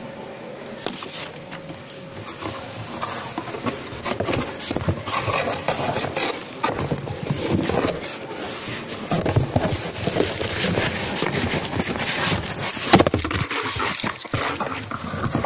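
Plastic packaging being handled close to the microphone: irregular crinkling and rustling with many small clicks and knocks, and one louder knock near the end.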